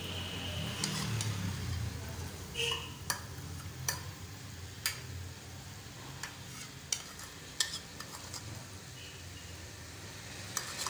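Egg paratha frying on a tawa with a soft, steady sizzle, and a metal spoon clicking and scraping against the griddle a dozen or so times at uneven intervals as it spreads the egg topping.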